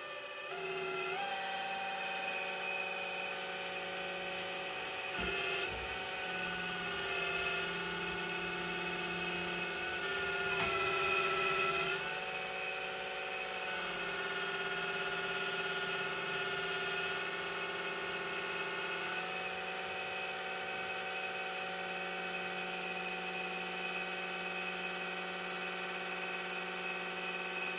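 The electric hydraulic pump of a VLV 360 RC hydraulic excavator comes up to speed about a second in and runs with a steady whine. Its pitch steps up and down several times as the boom, stick and bucket are worked.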